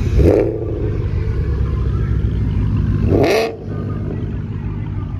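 A car engine running with a steady low rumble, revved in two short bursts, one right at the start and one about three seconds in.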